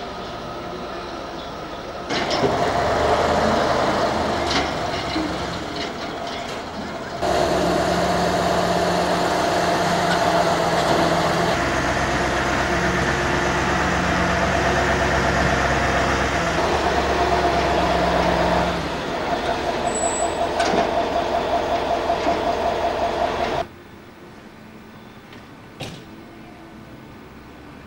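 A heavy engine, such as a truck or construction machine, running steadily with a held droning note. Its level jumps up and down abruptly a few times, and it cuts off suddenly near the end, leaving quieter background noise.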